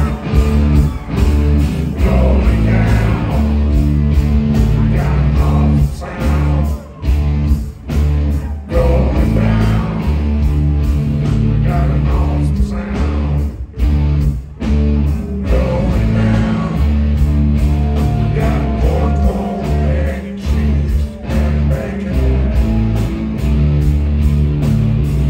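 Loud rock music with singing over a heavy, stepping bass line.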